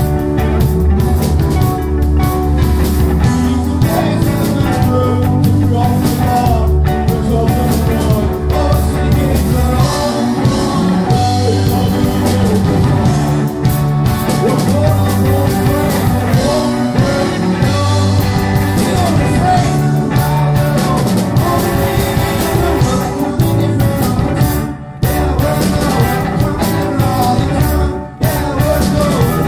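Live rock band playing: electric guitar, drum kit and keyboard together, loud and continuous, with two brief breaks near the end.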